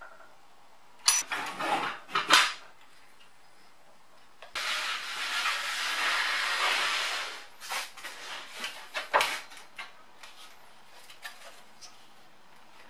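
Sharp metal clinks and knocks of a wrench on the circular saw's base, then about three seconds of steady scraping hiss as the saw's base plate slides along the aluminium guide rail, followed by scattered knocks and taps.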